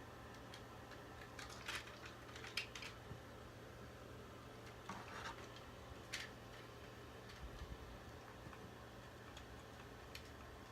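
Scattered small clicks and taps of hard plastic toy parts being handled during disassembly, over a low steady hum. There is a cluster of clicks a couple of seconds in and single taps later on.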